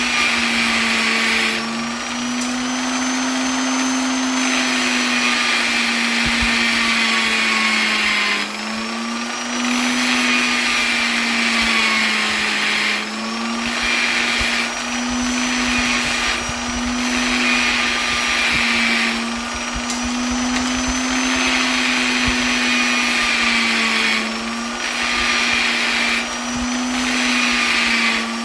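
Electric polisher running continuously, a steady motor hum and whine whose pitch sags slightly and recovers every few seconds, with a hiss over it that briefly drops out now and then.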